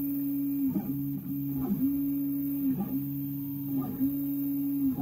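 Prusa i3 MK3S+ 3D printer's stepper motors running while printing: a steady hum that dips in pitch and comes back about once a second as the moving axis slows, reverses and speeds up again.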